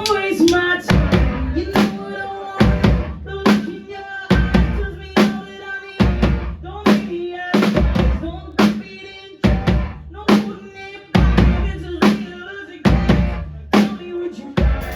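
Live rock band playing an instrumental passage: a drum kit with heavy kick and snare hits at a steady beat under sustained guitar and bass notes, with no vocals.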